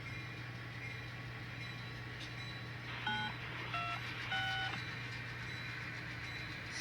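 Three short horn toots from an N scale diesel locomotive's sound decoder, the railroad signal for backing up, the last slightly longer. They sound over a steady low hum.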